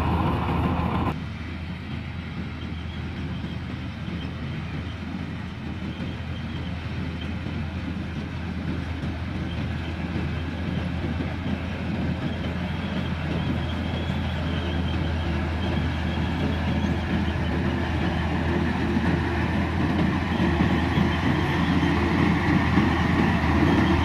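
Tracked rice combine harvester running while it cuts rice: a steady mechanical drone over a constant engine hum. It drops abruptly about a second in, then grows gradually louder as the machine comes closer.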